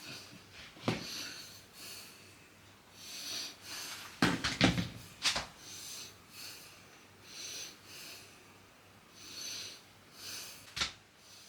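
Soft breathing puffs close to the microphone, one every second or two, with a few sharp clicks and knocks of handling.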